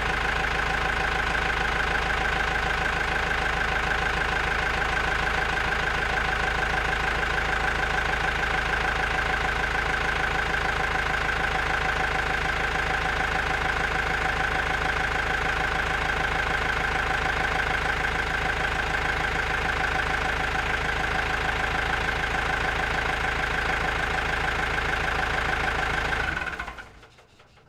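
Tractor engine idling at a steady speed, then cutting off near the end and dying away.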